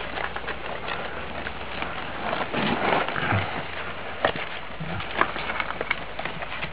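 One-month-old Chesapeake Bay retriever puppies scuffling about, a dense, irregular patter of small clicks and scratches from their paws and claws.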